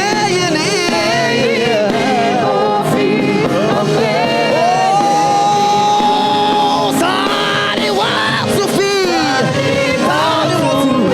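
Live gospel choir music: singing over the band's accompaniment, with one long held note about halfway through.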